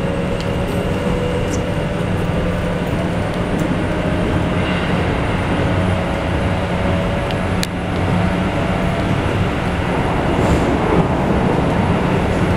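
Running noise heard from inside a Keikyu 1500 series steel-bodied commuter car with field-chopper control: a steady rumble of wheels on rail, with a faint steady whine. A single sharp click comes a little past the middle.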